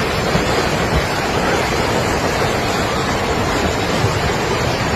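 Loud, steady rushing noise with no breaks or distinct impacts, like heavy flowing water or debris.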